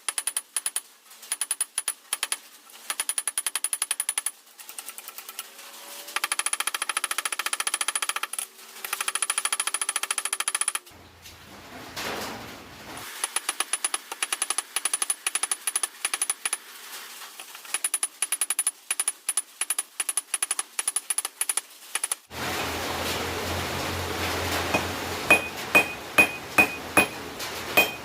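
Hot steel being hammered on an anvil in quick runs of blows, each run lasting a second or two with short breaks between. About 22 seconds in a low steady hum starts suddenly, and near the end come single loud, ringing hammer blows, about two a second.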